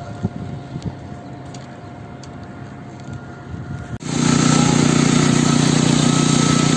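Concrete pump running steadily and fairly quietly. About four seconds in it suddenly jumps to a much louder, steady run with a heavy low hum.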